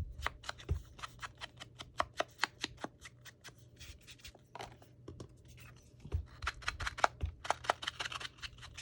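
Hands sorting through sheets of craft paper: an irregular run of small paper clicks, taps and rustles.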